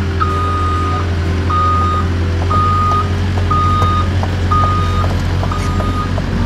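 Caterpillar excavator's warning alarm beeping about once a second, each beep about half a second long, over the steady low hum of its diesel engine running.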